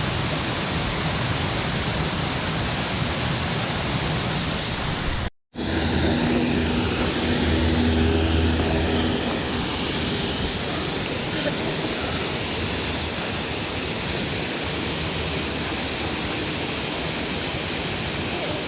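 Steady rushing of a mountain stream, an even wash of water noise, cutting out for a split second about five seconds in.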